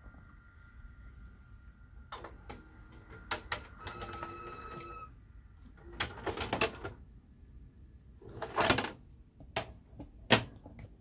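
Sony SLV-X327 VHS video recorder's tape mechanism working: a run of mechanical clicks and clunks, with a short motor whine about four seconds in and a longer whirr a little before the last two sharp clicks.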